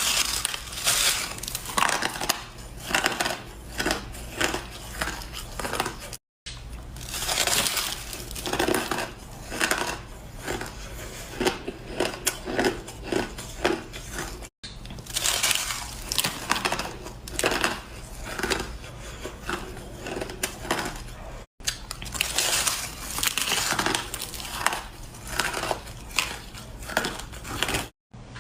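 Ice being bitten and chewed close to the mic: a rapid, dense run of sharp crunches. It breaks off in brief silent gaps a few times where one clip cuts to the next.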